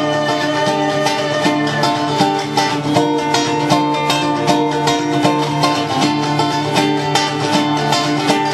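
Acoustic guitar played as a lively run of quick plucked notes, an instrumental passage with no singing.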